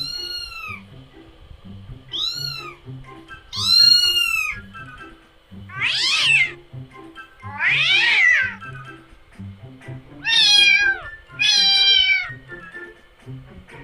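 Domestic cat meows, about seven separate ones a second or two apart, some arching up and down in pitch and others falling, over background music with a steady beat.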